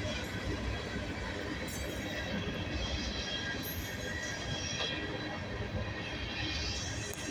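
Freight train rolling past, a steady rumble of steel wheels on rail with faint high wheel squeal.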